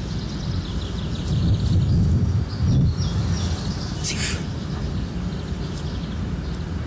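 Small birds chirping faintly over a steady, uneven low rumble of outdoor noise, with a brief rustle about four seconds in.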